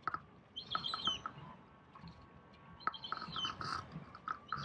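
A bird calling, a short high phrase with a falling end repeated about every two seconds, with quick clicking notes around each phrase.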